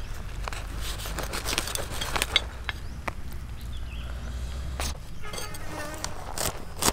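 Heavy cleaver cutting through crisp-skinned roast chicken: crackling, snapping clicks and knocks, with a sharp crack about two and a half seconds in. Near the end the cleaver slices a cucumber with a crisp chop, and a short insect-like buzzing sounds just before it.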